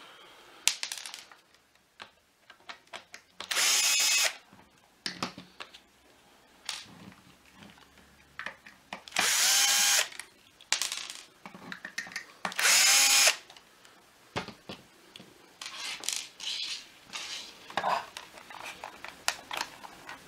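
Power drill with a Torx bit backing screws out of a plastic vacuum cleaner housing: three short runs of about a second each, a few seconds apart. Clicks and plastic handling knocks come between the runs.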